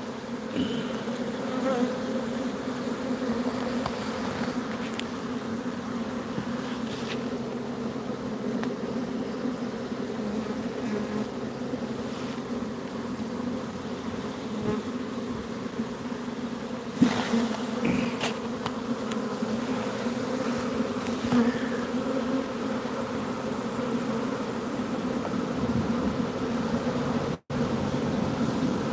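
Swarm of honeybees buzzing in a steady hum as they mill over the tarp and fly back out of the hive box, restless because their queen is not inside.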